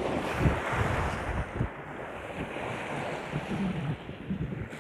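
Small waves of shallow surf washing in over sand and swirling around bare feet, with wind gusting on the microphone as a low, uneven rumble.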